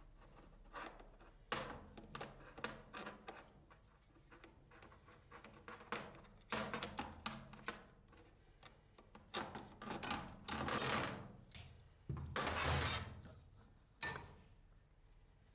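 Hand work on aluminium air-conditioning tube ends as they are prepared for hose crimping: irregular clicks, knocks and short scraping strokes of tools and metal parts. There is a longer rasping scrape about twelve seconds in.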